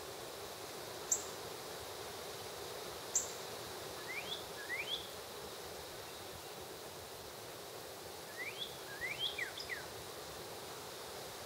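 Animal calls over a steady outdoor hum: a short high chip repeats about every two seconds. A pair of quick rising chirps comes about four seconds in, and a cluster of rising chirps follows a few seconds later.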